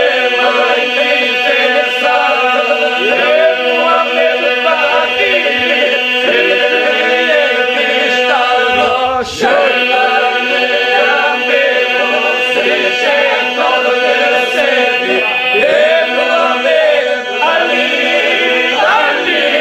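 Mixed group of men and a woman singing an Albanian Bektashi devotional song together in chorus, the melody voices bending and moving over a steady held drone.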